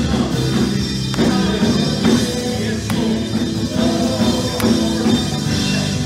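Live worship band playing a song with electric and acoustic guitars, bass guitar, keyboard and drums, with sustained chords over a steady beat.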